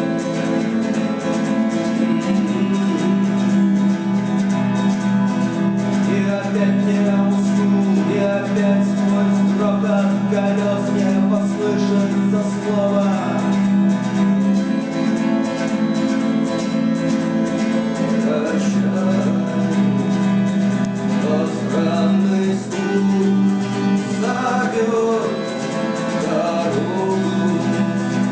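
A band playing a rock song with guitar to the fore over a steady beat.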